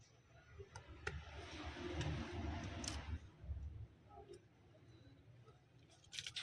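A few sharp clicks with a stretch of rustling handling noise between them, then a quick cluster of clicks near the end.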